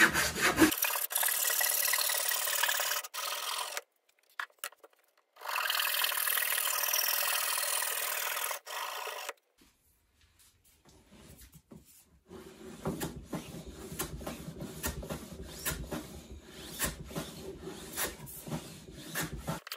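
Japanese dozuki pull saw strokes through a purpleheart board, ending just under a second in, then a steady hiss for several seconds with a short break. From about twelve seconds in, a hand plane runs along a shooting board, trimming the board's end in repeated scraping strokes with sharp ticks.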